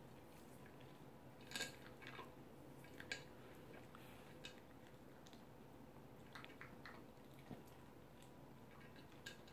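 Toy poodle eating from a plastic food bowl: faint, scattered crunches and clicks of chewing and of the bowl, the clearest about one and a half seconds and three seconds in.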